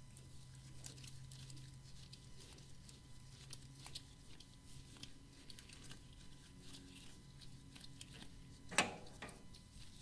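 Die cutting a 1/4-28 thread on brass stock, the tailstock die holder turned by hand: faint scattered ticks and crackles, with one sharper knock near the end. A low hum runs under it and stops just before the knock.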